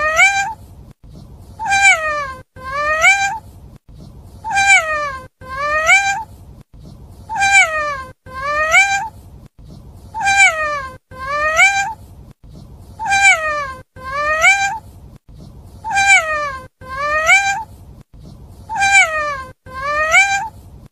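A domestic cat meowing in pairs, a falling meow followed by a rising one. The same pair repeats identically about every 2.7 seconds, seven times over, like a loop.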